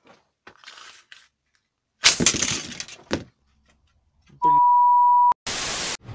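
The plastic chainsaw starter cover falls onto a tiled floor with a loud clattering crash about two seconds in. Near the end come a steady beep lasting about a second and then a short burst of static hiss.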